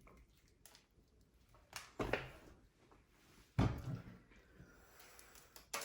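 Two brief, soft thumps about a second and a half apart, like food containers or utensils being handled and set down on a table, with a sharp click near the end.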